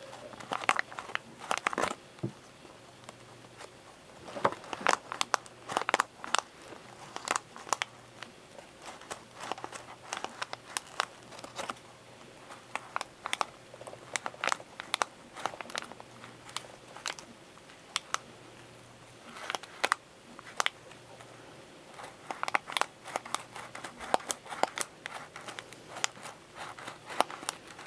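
Folded paper of an origami Venus flytrap crinkling and crackling as its side tabs are pulled and pushed to work the mouth open and shut. The crisp crackles come in irregular clusters, with short pauses between them.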